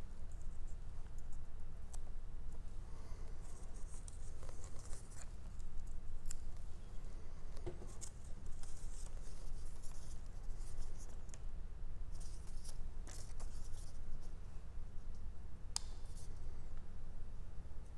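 Light rustling, scratching and small taps of paper pieces being handled and pressed down onto a glue-wetted collage board, over a steady low hum.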